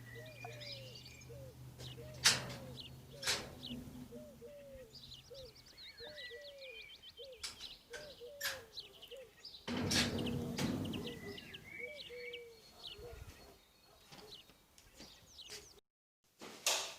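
Birds calling and chirping: a steady run of short, repeated arching calls with higher twittering above them. Two sharp knocks come early, and there is a short noisy clatter about ten seconds in.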